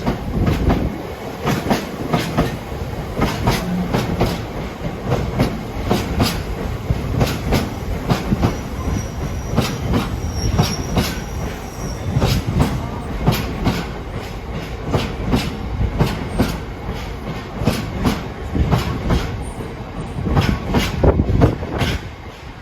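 Freight train hauled by a class 66 diesel rolling past, its wagon wheels clacking over rail joints in a long, continuous series, with a faint high wheel squeal about nine to twelve seconds in.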